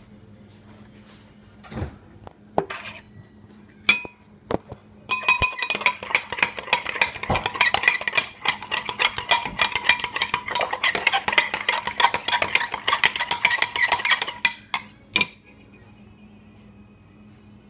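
A metal utensil stirring briskly in a cup, clinking rapidly against its sides for about ten seconds, the cup ringing with each strike. There are a few separate clinks and knocks before it starts and one more knock after it stops.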